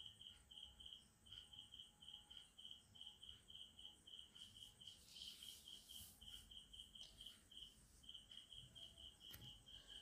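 Near silence, with a faint, high cricket-like chirp repeating steadily, about four chirps a second in short runs. A faint hiss rises briefly about five seconds in.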